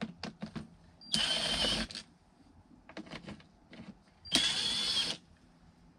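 Cordless drill-driver spinning out screws from the heater box's blend door actuator, in two short runs of under a second each, about three seconds apart. Small clicks and knocks of handling come between them.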